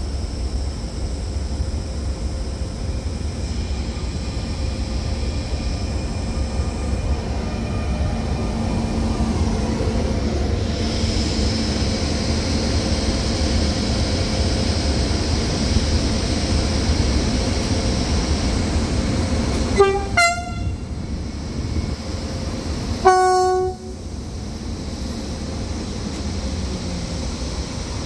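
Freight train rolling past with a steady low rumble, and a train horn giving two short blasts about three seconds apart, the second louder and a little longer.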